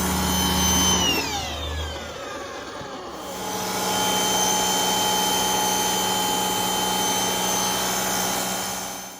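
Pressure washer running loudly with a steady machine whine. About a second in its pitch falls away and it goes quieter, then from about three seconds it runs steadily at full level again until it cuts off abruptly at the end.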